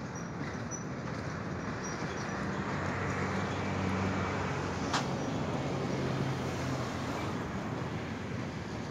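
Long freight train of boxcars rolling slowly past, a steady noise of steel wheels on the rails that swells midway, with one sharp metallic click about five seconds in.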